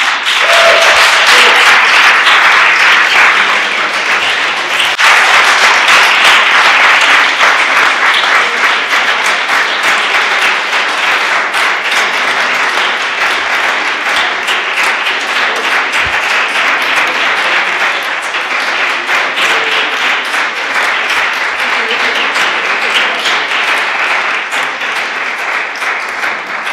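An audience applauding: sustained clapping that starts suddenly, stays loud, and slowly eases off near the end.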